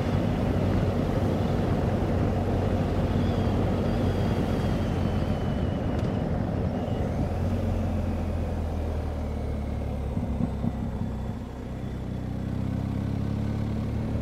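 BMW R1250GS Adventure's boxer-twin engine running under way, heard from on the bike with wind and road noise, as the bike slows on a sealed road. The sound eases off briefly about three-quarters of the way through.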